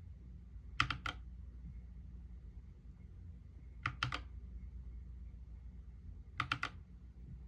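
YUNZII KC68 mechanical keyboard with lubed Gateron Yellow linear switches and XDA keycaps being typed on: three short clusters of two or three keystrokes, about three seconds apart.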